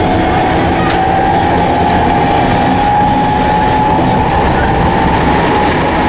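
Inside an old Circumvesuviana narrow-gauge commuter train running between stations: a loud, steady rumble of wheels and carriage, with a whine slowly rising in pitch and a faint click about a second in.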